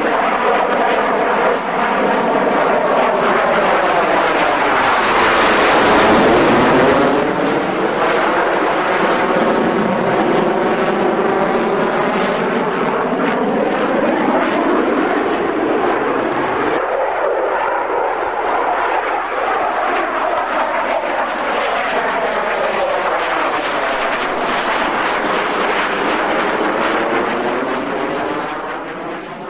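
F-16 fighter's jet engine running loud and continuous through a display manoeuvre, with a shifting, phasing sweep in its tone as the jet passes, loudest about six seconds in. It fades out at the end.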